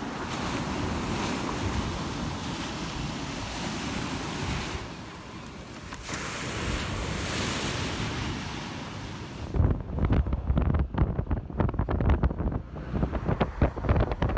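Wind blowing across the microphone, a steady rushing hiss. About ten seconds in it changes to heavy, irregular low buffeting with little hiss left.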